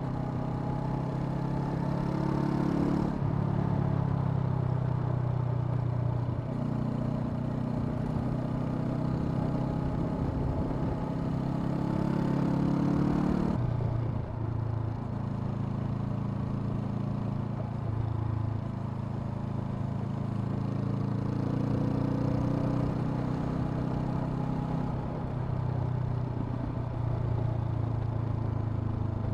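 Honda CL500's 471 cc parallel-twin engine running under way, its note holding steady and then stepping up or down every few seconds as the throttle and gears change.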